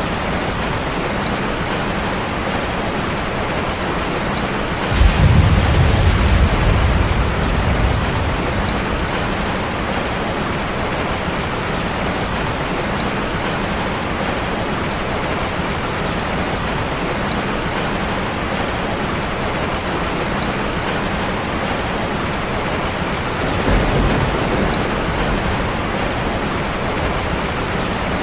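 Steady heavy rain with two rolls of thunder: a loud one that breaks suddenly about five seconds in and rumbles away over about three seconds, and a softer one near the end.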